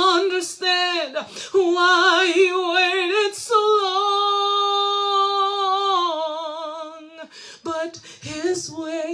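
A woman singing a gospel song solo and unaccompanied, with a wavering vibrato. The phrases run on, with one long held note about halfway through, then break into shorter phrases near the end.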